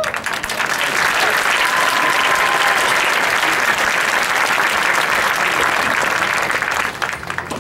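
Large stadium crowd applauding, loud and steady, then dying down near the end.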